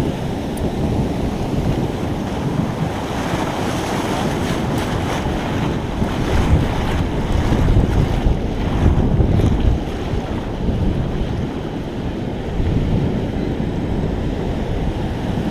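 Ocean surf washing up the beach, with wind buffeting the microphone in uneven gusts.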